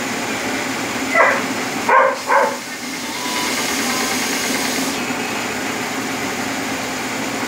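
Electric power tool motor running steadily while sanding a wooden fidget-spinner piece. It is broken about a second in by three short, loud, sharp calls.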